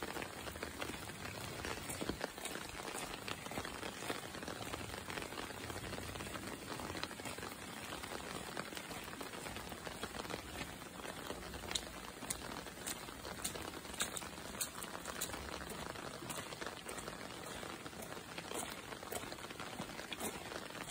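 Heavy rain falling steadily, a dense even hiss with scattered sharp ticks of drops striking close by, thickest a little past the middle.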